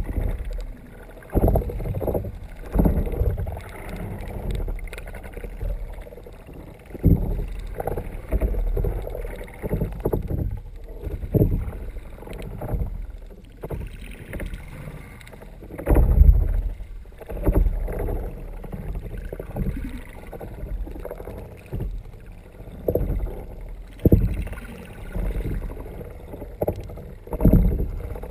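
Water sloshing and knocking against the underside of a kayak, heard muffled and low through a GoPro's sealed dive housing, with irregular surges and thumps every second or two.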